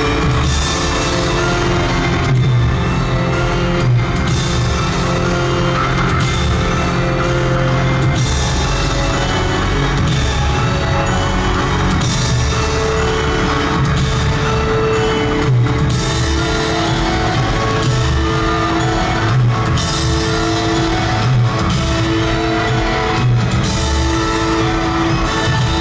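Loud live pop music from an arena sound system, recorded from among the audience: a steady heavy drum beat under held chords.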